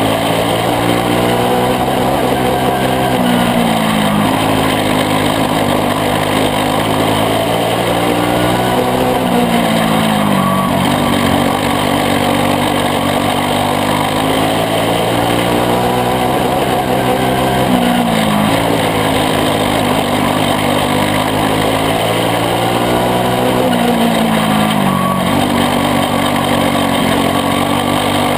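Briggs & Stratton Animal single-cylinder kart engine running hard in a caged dirt-track kart. Its pitch dips as the driver lifts for each turn and climbs again down each straight, about every seven seconds.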